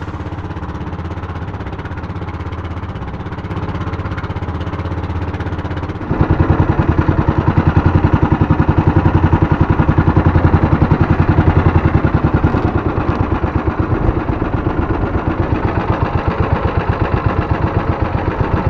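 Small boat engine running, stepping up to a louder, faster, even chugging about six seconds in as it is throttled up.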